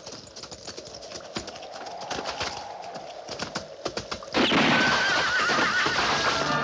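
Horse hooves clattering in a gallop, then, about four seconds in, a sudden loud horse whinny that starts high, falls, and wavers in pitch.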